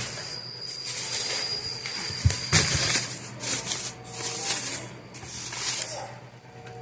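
Crinkling and rustling of grocery packaging or plastic bags in irregular bursts, with a couple of low thumps about two and a half seconds in.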